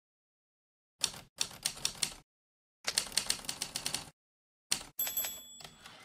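Sampled vintage typewriter key strikes from a Mac typewriter-sound app, one clack per key pressed, coming in quick runs from about a second in. Near the end a short bell ding rings out like a typewriter's carriage-return bell.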